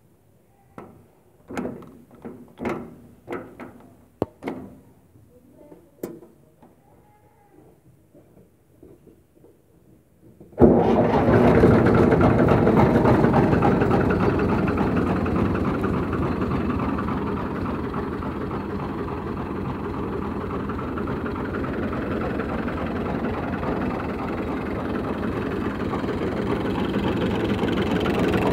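A few sharp knocks and clicks from the tractor's gear lever being worked. Then, about ten seconds in, the New Holland Fiat 55 hp tractor's diesel engine starts abruptly and runs steadily at idle.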